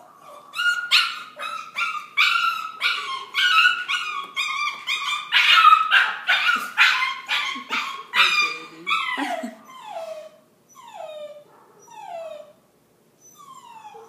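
A 7.5-week-old puppy, held on its back, squeals and yelps loudly and repeatedly in protest at the restraint, about two cries a second. About nine seconds in, the cries give way to softer whimpers that each slide down in pitch.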